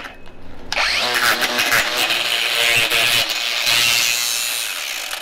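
DeWalt angle grinder spinning up with a quick rising whine about a second in, its damaged cutoff disc grinding against a steel vise, then the motor running down and fading near the end.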